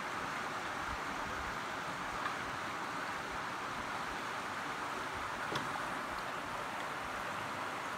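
Steady rushing of water running through a shallow river rapid, with two faint brief taps, one about two seconds in and one about five and a half seconds in.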